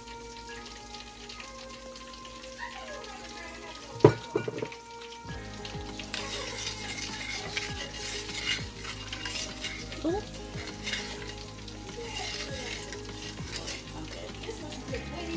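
Spiced honey mustard sauce sizzling and crackling as it heats in a casserole dish on the stove, while a spoon stirs it with small scrapes and clicks. One sharp knock about four seconds in is the loudest sound; the sizzling grows stronger after it.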